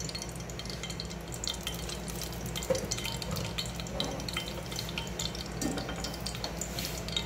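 Oil and melted desi ghee heating in an aluminium pot, giving scattered faint crackles and sizzles over a steady low hum.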